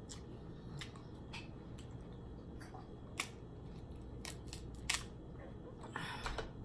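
Boiled shellfish shells being snapped and picked apart by hand: a string of separate sharp clicks and cracks, the loudest about three seconds in and again near five seconds, with a short rustle near the end.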